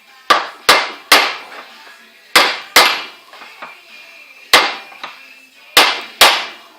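Hammer blows on a torch-heated steel piece held in a vise, straightening the bend: about eight sharp metallic strikes in groups of two or three, each ringing briefly.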